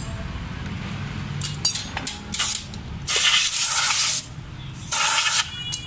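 Compressed-air blow gun blasting into a scooter's open CVT belt housing in two hissing bursts, a long one and then a short one, to clear out belt dust. Light metal clicks of tools come before the blasts.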